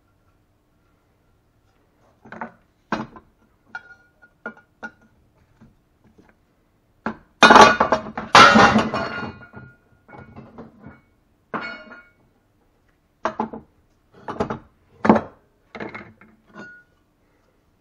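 Metal tools clinking and knocking on a steel engine mount at a workbench, with two loud hammer blows on metal about halfway through, each ringing on briefly.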